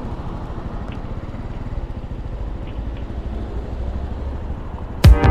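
Honda Cross Cub (JA45) single-cylinder engine idling with a steady low, fast-pulsing rumble. Loud music with a beat cuts in near the end.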